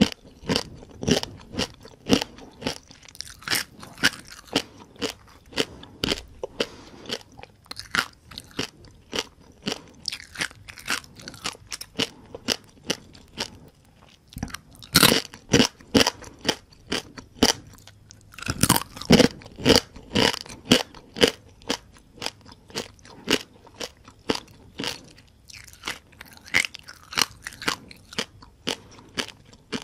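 Close-miked crunching and chewing of small deep-fried rice-field crabs, the shells cracking between the teeth in rapid bites, with the loudest crunches about halfway through and again a few seconds later.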